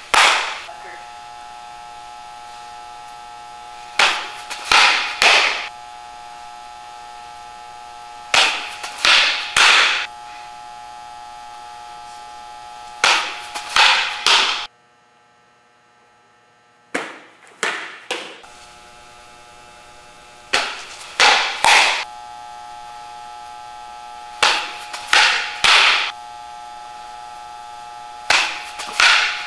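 Fastpitch softball pitches thrown one after another, about every four seconds: each brings a quick run of two or three sharp smacks as the pitch is delivered and the ball pops into the catcher's mitt. A steady electrical hum sits underneath and drops out briefly about halfway through.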